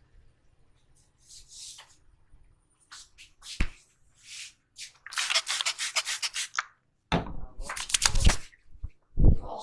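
Hands rubbing vigorously over the hair and scalp in a head massage: a run of scratchy rubbing strokes, with a sharp slap about three and a half seconds in and heavier thumps near the end.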